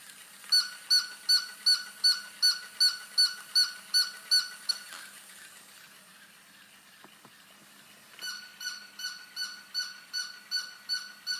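A regular series of short, high-pitched squeaks, about two and a half a second, each squeak the same pitch. The squeaks come in two runs, stopping just before five seconds in and starting again at about eight seconds.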